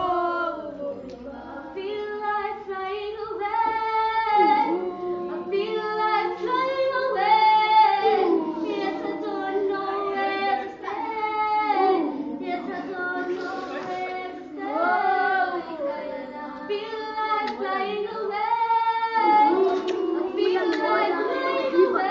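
Two children singing a song together, with long held notes.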